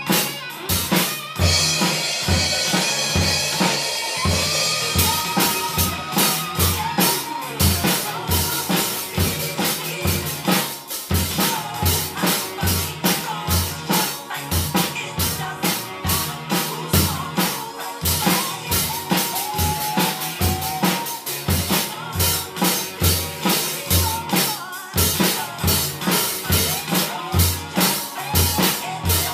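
Pearl drum kit played in a steady beat: bass drum, snare and cymbals, with a crash cymbal washing for a few seconds about a second in.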